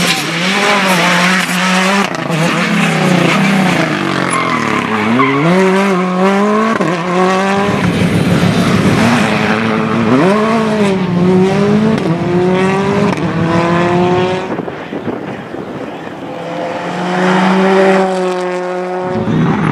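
Hyundai i20 R5 rally cars driven flat out, their turbocharged four-cylinder engines revving up through the gears, the pitch climbing and dropping at each shift, as several cars pass in turn. The sound changes abruptly between passes.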